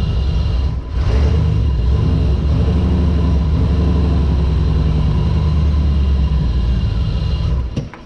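Car engine running steadily with a cylinder misfiring, then shut off and stopping abruptly near the end.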